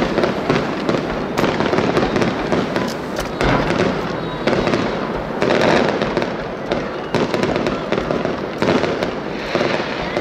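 Aerial fireworks display: shells bursting in quick succession, with dense crackling and popping that never lets up.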